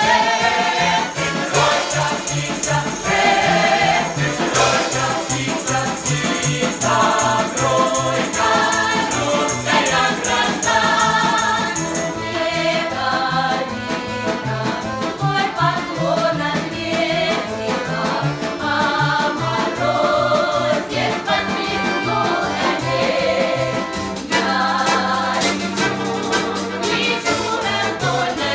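Russian folk ensemble singing in chorus with instrumental accompaniment and a steady beat. Bright jingling percussion sounds through the first twelve seconds or so, then stops, and the voices carry on.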